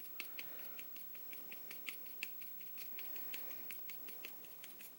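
Soldering iron tip lightly tapping into a pistol's plastic grip panel, stippling it: faint, irregular ticks, about four or five a second.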